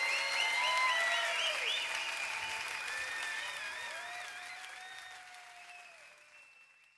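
A crowd applauding, with high wavering whistle-like calls over the clapping, fading out towards the end.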